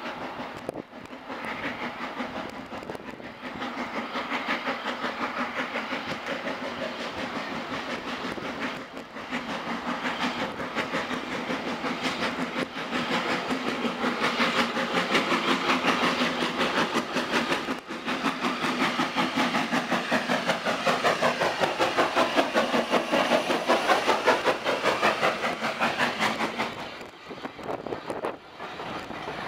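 Steam locomotive and its coaches running into a station, the noise growing steadily louder, loudest about 24 seconds in, then dropping off sharply near the end as the carriages go by.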